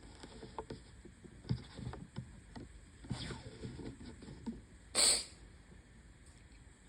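A person's breathing and sniffling amid light rustling and small clicks, during a hay-fever bout of sneezing. About five seconds in comes one short, sharp burst of breath, the loudest sound.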